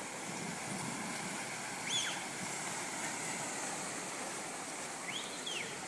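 Steady rushing wash of rainwater flooding a street, with cars wading through the floodwater. Brief faint high chirps about two seconds in and twice near the end.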